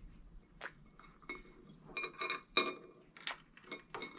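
A dog's teeth and muzzle knocking against a ceramic plate as it tries to pick up a squid ring: about seven short, irregular clinks with a brief ring.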